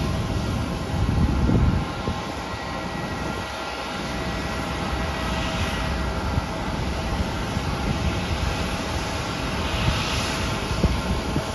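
Steady jet whine and rumble from a Boeing 777 airliner being pushed back by a tow tug. Low gusts of wind buffet the microphone about a second in.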